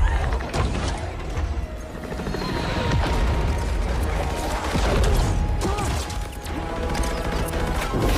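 Action-film soundtrack: a heavy boom at the start, then dense mechanical clanking and crashing sound effects over orchestral-style score.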